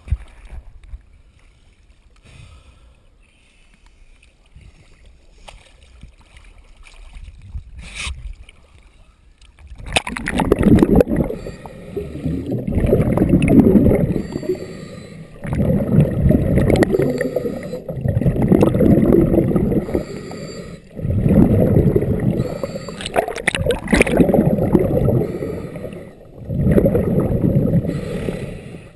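Scuba diver's regulator exhaust underwater: exhaled bubbles rush out in long, loud gurgling bursts every two to three seconds, starting about ten seconds in after a stretch of faint low hiss.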